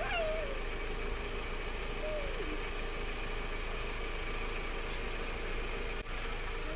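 1998 Toyota Camry's inline four-cylinder engine idling steadily, running on a newly replaced alternator that is charging properly. A couple of short falling whistle-like tones sound over it near the start and about two seconds in.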